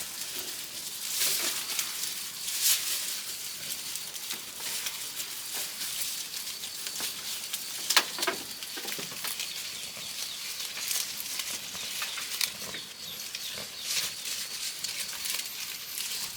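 Continuous rustling and crackling of leaves and plant material, with scattered sharp snaps.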